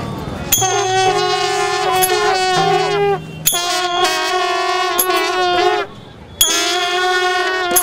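Wind instruments playing long held notes together in phrases of two to three seconds, each phrase ending with a downward bend in pitch, with short breaks about three seconds in and about six seconds in.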